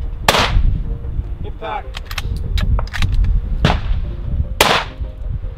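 Two centerfire precision rifle shots about four seconds apart, each a sharp crack with a short echoing tail, with fainter clicks and knocks between them over a steady low wind rumble.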